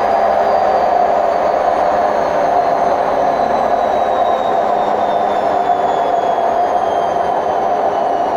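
Hotpoint WMF760 washing machine on its spin cycle: a loud, steady rumbling roar from its worn drum bearings, with a faint high whine slowly falling in pitch.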